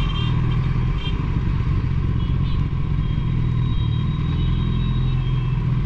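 Suzuki Hayabusa's inline-four engine with a Two Brothers Racing exhaust running steadily at low, even revs while riding, without revving up.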